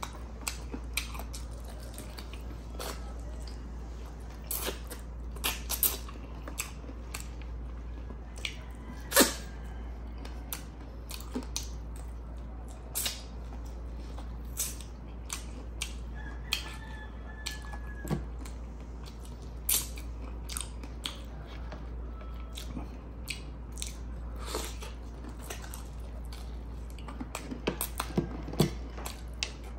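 Close-up mouth sounds of a person eating chicken and rice by hand: chewing, lip smacks and short clicks at irregular intervals, the loudest about nine seconds in.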